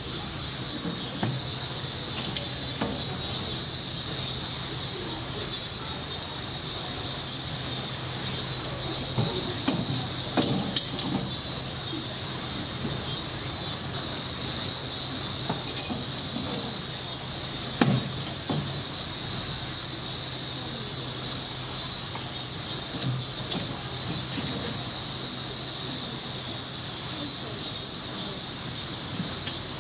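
Steady chorus of summer cicadas: an even high-pitched buzz with a faster pulsing shimmer above it, over a low steady hum. A few scattered knocks come through it, the sharpest about 18 seconds in.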